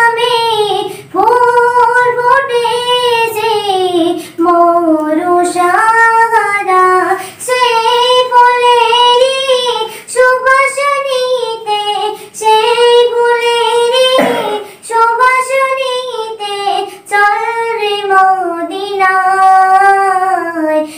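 A girl's solo voice singing a Bengali Islamic devotional song (gojol), with long held, wavering notes and short breath pauses, unaccompanied.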